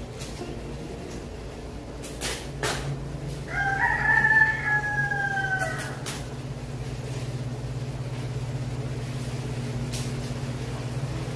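A rooster crows once, a single call of about two seconds that falls slightly in pitch at the end, over a steady low hum. A few sharp clicks come from a plastic tablet case being handled.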